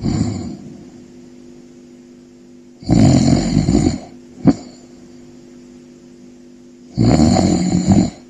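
Snoring in a slow, even rhythm: two long snores about a second each and about four seconds apart, the first followed half a second later by a short sharp puff of breath.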